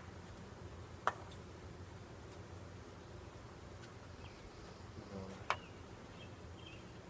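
Honeybees buzzing at an open hive, a steady low hum, with two sharp knocks about a second in and again about five and a half seconds in.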